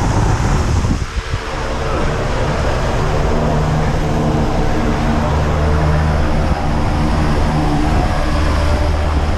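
Single-engine jump plane's engine and propeller idling steadily on the ground, heard from inside the cabin through the open side door.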